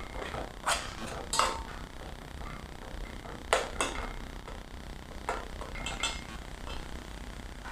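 Kitchenware clinking as dishes and utensils are handled: a handful of separate sharp clinks, the loudest about three and a half seconds in, over a steady low hum.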